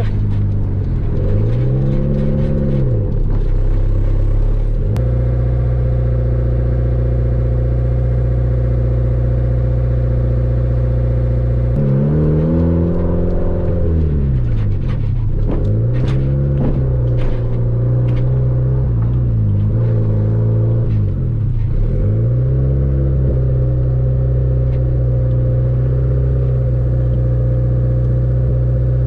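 Honda hatchback's turbocharged four-cylinder engine, with a 2.5-inch downpipe and straight-piped exhaust, running under way: a steady drone whose pitch drops and climbs again several times as the revs change, with steady stretches between.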